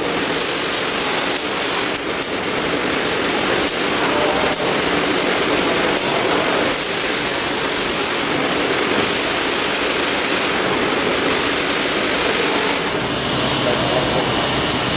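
Automatic shopping-bag folding and gluing machine running: a steady mechanical din with a thin high whine over the first half and a few faint clicks.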